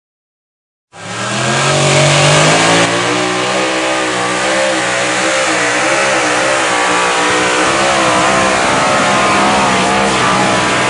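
Multi-engine modified pulling tractor running at full throttle under load while it drags the weight sled. The loud engine note starts suddenly about a second in. Its pitch rises at first, then wavers up and down as the engine speed rises and falls.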